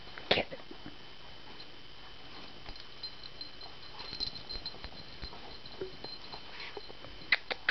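A silky terrier puppy jumping and grabbing at a tennis ball held in a hand: scattered light taps and clicks, with one louder sharp sound about a third of a second in and a few sharp clicks near the end.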